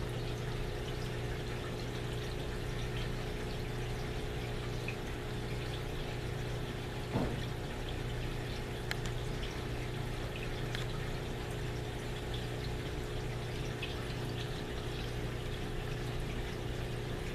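Aquarium filters and pumps running in a room full of tanks: steady trickling, splashing water over a constant low hum. One brief short sound about seven seconds in.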